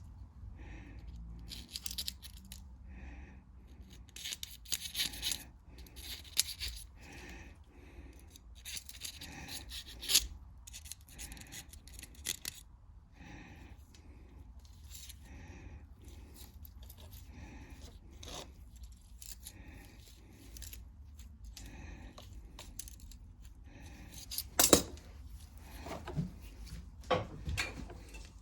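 Small metal carburetor parts being handled and worked on: repeated short scraping and rasping sounds with clinks, and a sharp click about 25 seconds in, over a steady low hum.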